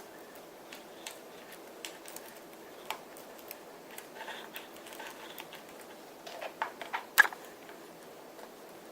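Small clicks and taps of smartphone parts and small tools being handled during a screen repair, with a cluster of taps and one sharp click about seven seconds in.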